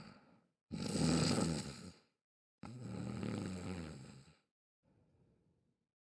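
A sleeping person snoring loudly, two long snoring breaths of about a second and a half each, the first the louder, with the tail of a previous snore at the start and a faint breath near the end.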